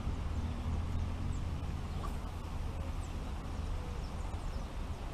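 Low, steady wind rumble on the microphone, with a few faint, short bird chirps above it.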